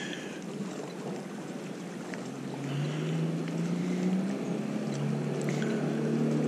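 Engine of a passing motorboat droning steadily, its low note growing louder from about halfway through.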